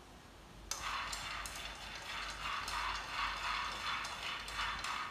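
Food frying in a pan over a gas flame, hissing and crackling while chopsticks stir it, with uneven swells and clicks. It starts suddenly a little under a second in and cuts off abruptly near the end.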